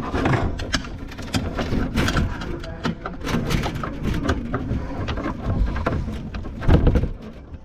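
Scattered knocks, clicks and rustling of parts and tools being handled under a kitchen sink, with a louder knock near the end.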